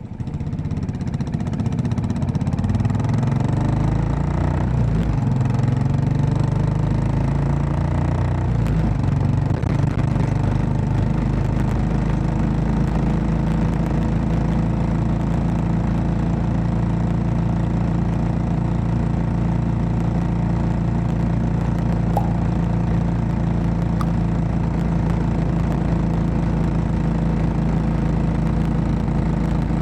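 Royal Enfield Classic 500's single-cylinder four-stroke engine running, its pitch shifting for the first nine seconds or so, then holding steady.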